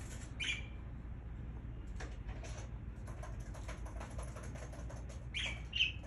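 Pet budgerigars giving a few short, high chirps, one about half a second in and two near the end, with soft scratchy chatter and rustling between them.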